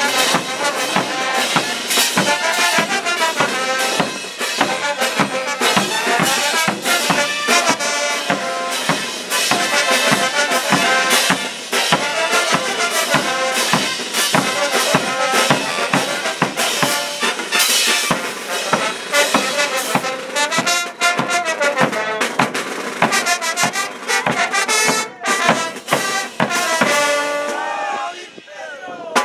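Andean brass band playing morenada: trumpets, trombones, baritone horns and sousaphones over a steady bass drum, snare drum and crash cymbals. The music drops away briefly near the end.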